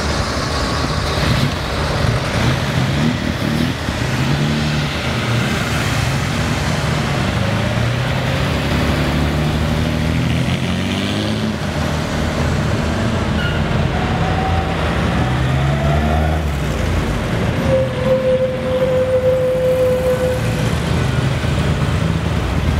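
Classic car engines pulling away and driving past one after another, each engine note rising as it accelerates. A held steady tone sounds for about two seconds late on.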